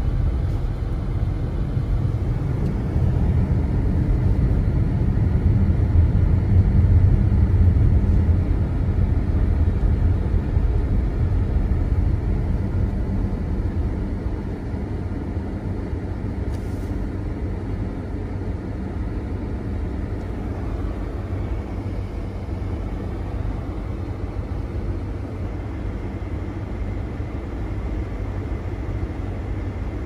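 Car cabin noise while driving on snow-covered roads: a steady low rumble of tyres and engine. It is louder for the first dozen seconds and eases to a quieter level a little before halfway.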